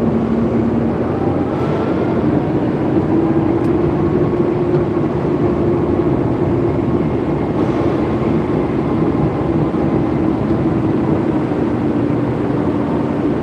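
Forklift running as it is driven: a steady motor hum that rises slightly in pitch about three seconds in, over a constant rushing noise.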